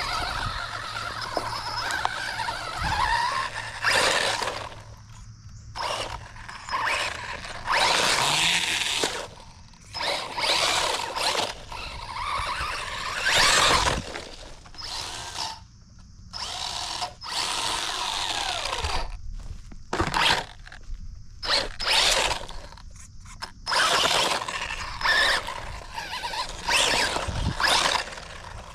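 1/16-scale HBX 16889A Pro RC truck's brushless electric motor and geartrain whining in repeated short throttle bursts, with brief pauses between them.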